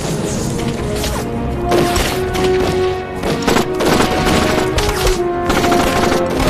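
Dramatic orchestral film score over battle sound effects: repeated gunfire and booming explosions.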